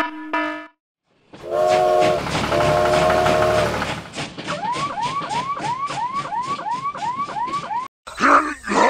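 Steam-train sound effect: two long whistle blasts with hiss, then rapid chuffing with a rising chirp about three times a second. A short steady beep opens it, and a brief sliding voice-like sound comes near the end.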